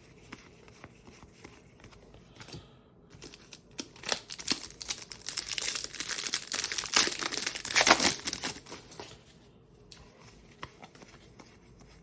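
Plastic wrapper of a trading-card pack being torn open and crinkled: a dense crackling that swells in about four seconds in, lasts about five seconds, and dies away, with a few soft ticks before and after.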